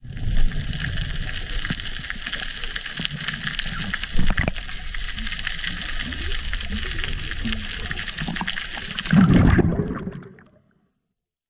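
Underwater sound through a camera housing: a steady hiss with low water rumble and scattered clicks, one louder click about four seconds in. A louder low surge comes about nine seconds in, then the sound fades out to dead silence near the end.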